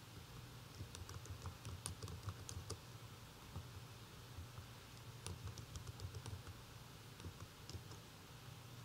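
Computer keyboard typing: two short runs of keystrokes, one about a second in and another about five seconds in, over a faint steady low hum.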